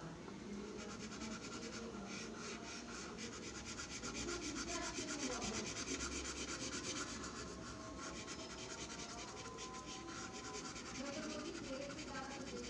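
Charcoal stick scribbling on drawing paper in rapid short back-and-forth strokes, a continuous scratchy rubbing as dark shading is built up, busiest through the middle.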